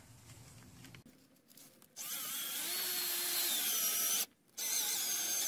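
Cordless drill driving a screw through vinyl J channel into the wall. It starts about two seconds in, running with a whine whose pitch shifts a little, stops briefly, then runs again.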